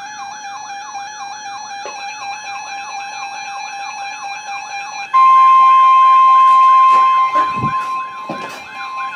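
A wailing siren tone rising and falling about three times a second, over steady electronic tones. About five seconds in, a loud steady single-pitch alarm tone just above 1 kHz cuts in, the NOAA Weather Radio warning alarm tone. It holds for about two seconds, then drops to a fainter level under a few falling sweeps.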